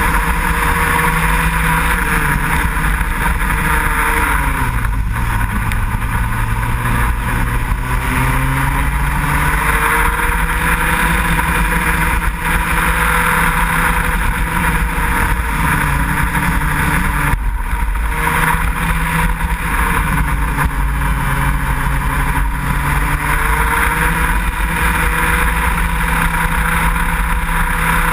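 Racing kart engine running hard, heard from on board the kart. Its revs drop and climb again several times as it slows for corners and accelerates out.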